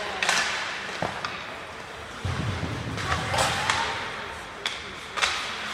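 Ice hockey play in an arena: sharp, scattered clacks of sticks and puck, with a low rumble of a heavier thud against the boards about two seconds in, over steady rink noise.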